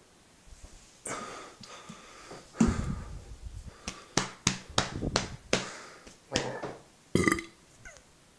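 A person breathing hard and wheezing between burps after chugging Coke. About two and a half seconds in there is one short, loud, low sound, and it is followed by a run of short, sharp mouth and throat sounds, roughly three a second at first.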